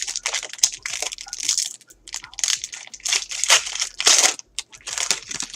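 A trading card pack's plastic wrapper being torn open and crinkled by hand: a quick run of crackling rustles.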